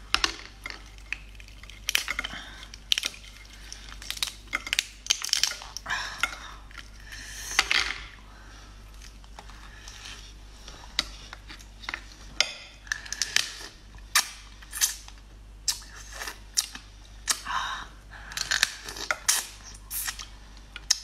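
Raw soy-marinated swimming crab being eaten by hand: shells and legs crackling and snapping as they are pulled apart, with wet sucking sounds as the meat and roe are drawn out. The crackles and squelches are irregular and keep up throughout.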